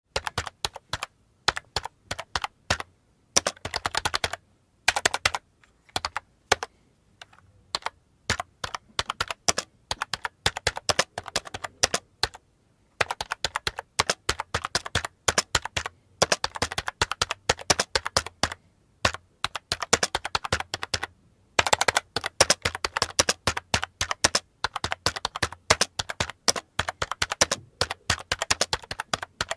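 Black Sharpie marker strokes on paper, sped up into a rapid, irregular run of clicks and scratches in bursts with short pauses.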